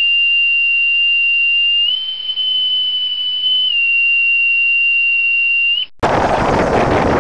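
One loud, steady, high whistle-like tone that steps up slightly in pitch about two seconds in, drops back near four seconds, and stops about six seconds in. It gives way to wind buffeting the microphone and water noise aboard a sailboat under way in choppy water.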